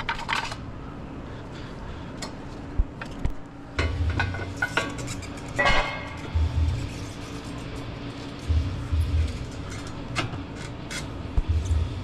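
Scattered clinks and knocks of hand tools and metal suspension parts being handled, over a steady low hum, with a few short low rumbles.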